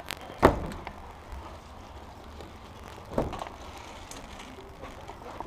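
Two sharp knocks, one about half a second in and another about three seconds in, over a steady low buzz in the recording.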